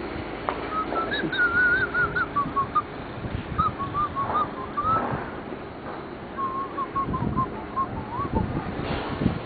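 A person whistling a wandering tune in three short phrases, the pitch wavering up and down from note to note, with scattered low thumps underneath.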